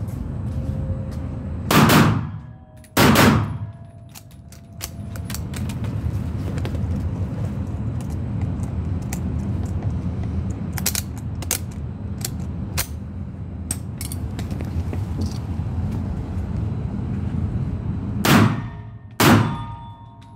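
Mauser C-96 pistol fired indoors: two pairs of shots, one pair about two seconds in and one pair near the end, each shot echoing briefly off the range. Between the pairs there is a steady low rumble with faint ticks.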